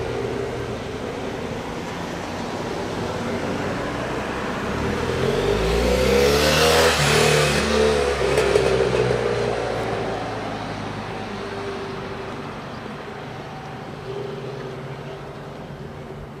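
A road vehicle passes by close. Its sound swells to a peak about halfway through, the pitch drops as it goes past, and then it slowly fades, over a steady background hum.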